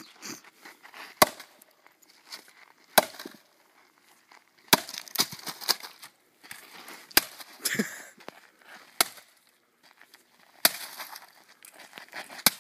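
Sledgehammer smashing a broken HP laptop: seven heavy blows, roughly two seconds apart, with broken pieces clattering after several of them.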